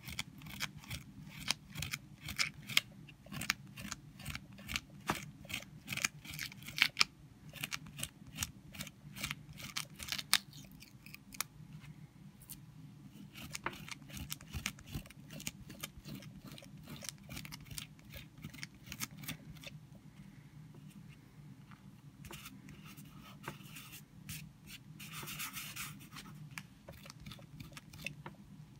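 Gum rubber pickup pad rubbed hard over dried masking fluid (frisket) on watercolour paper, scraping it off. The strokes come quick and crisp for about the first ten seconds, then turn softer, with a last louder flurry near the end.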